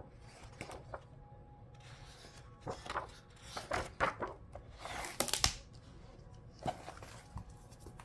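Paper pages of a picture book being turned by hand: several short rustles of paper, with a sharp tap a little past the middle as the book is handled.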